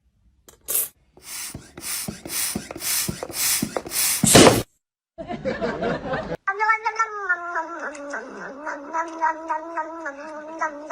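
A cat yowling: one long, drawn-out call with a wavering pitch in the second half, after a run of rough, noisy bursts about half a second apart.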